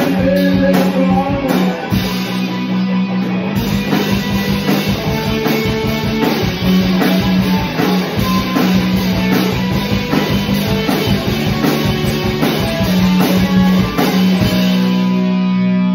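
A rock band playing live: electric guitar, bass guitar and a Tama drum kit in an instrumental passage with no singing. The drums and cymbals stop near the end while the guitar and bass ring on.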